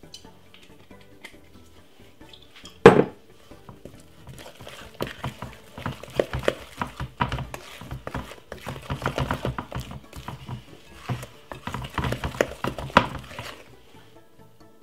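Wooden spoon beating thick cake batter in a glass bowl: rapid, irregular knocks and scrapes against the glass from about four seconds in until shortly before the end. A single sharp knock about three seconds in is the loudest sound.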